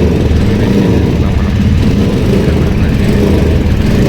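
Bajaj Pulsar NS160's single-cylinder engine running with a misfire. The mechanic blames the throttle body having come out of place.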